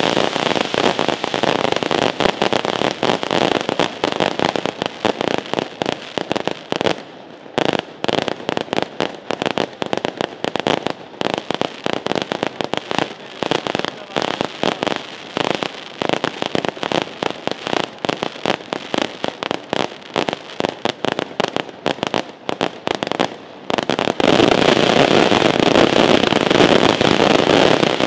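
Aerial fireworks shells firing and bursting in rapid overlapping bangs and crackles. The bangs thin out to separate reports through the middle, then build to a dense, continuous barrage about 24 seconds in.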